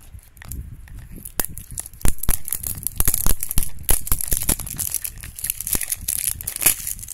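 Printed wrapper being torn and peeled off a toy blind-box cup: a run of sharp rips and crinkling crackles, starting about a second in and getting louder.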